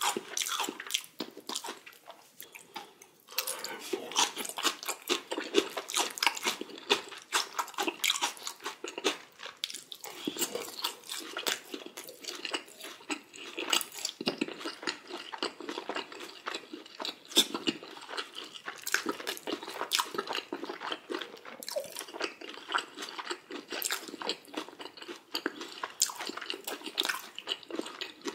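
Close-miked eating: a steady run of crunching bites and chewing, irregular and dense.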